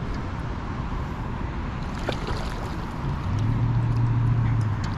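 Road traffic: a steady rush of noise, with a vehicle's low engine hum swelling as it passes from about three seconds in.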